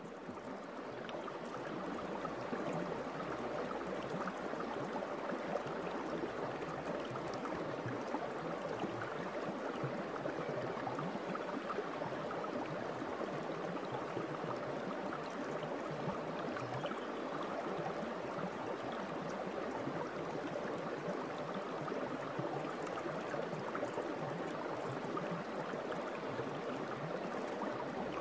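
Steady sound of running water, like a flowing stream, fading in over the first two seconds and then holding even.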